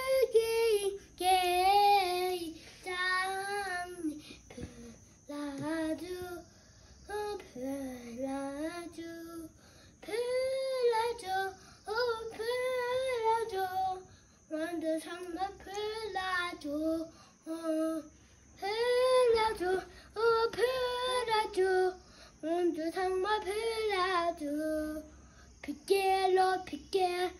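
A young child singing with no accompaniment, in short phrases broken by brief pauses, the pitch wavering up and down.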